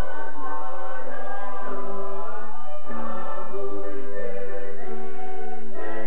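A mixed choir of men and women singing a sacred song in harmony through stage microphones, on held chords that shift every second or so.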